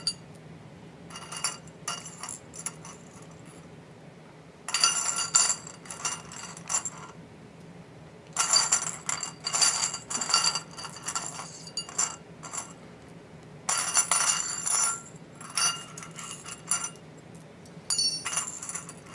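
Small metal hardware, sheet metal screws and fittings, clinking and rattling in a bowl as it is stirred and picked through. It comes in four bursts of a second or two, each with a short ringing, and lighter single clinks between them.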